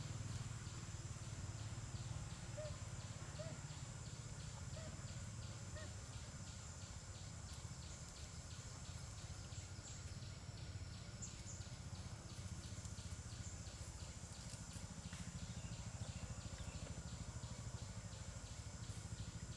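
Insects chirping in an even rhythm, a few pulses a second over a high steady buzz, against a low rumble, with a few faint short chirps a few seconds in.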